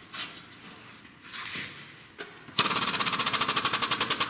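Air-over-hydraulic foot pump running in a rapid, even pulsing, about fourteen strokes a second, starting suddenly a little past halfway, as it pressurises a hydraulic ram inside a steel tube to push a dent back out.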